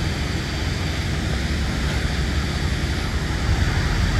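Steady low rumble of outdoor background noise, with no distinct knocks, tones or voices.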